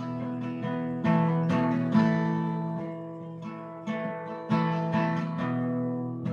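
Acoustic guitar strumming chords with several strokes a second, the chords ringing on between strokes; an instrumental passage with no singing.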